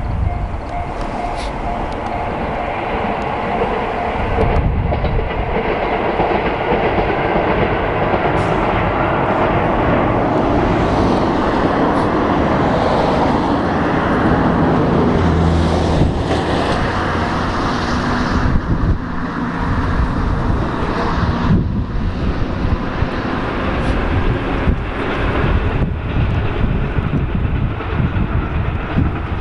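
A Kyushu Odan limited express diesel railcar (KiHa 185 series) running along the track. Its engines and wheels make a steady, continuous rail noise as it passes.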